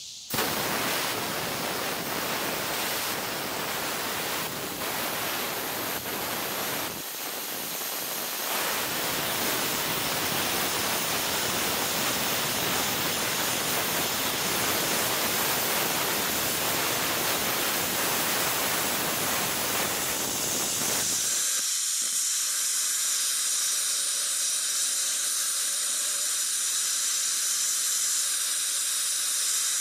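Hypertherm plasma cutter cutting through steel plate: a steady hiss of air and arc. About two-thirds of the way through it turns abruptly thinner and higher, losing its low end.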